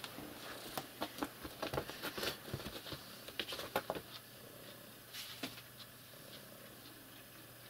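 A cat batting and pouncing on a mouse on a carpet: a quick run of soft taps and scuffles over the first four seconds, then only a few faint ticks.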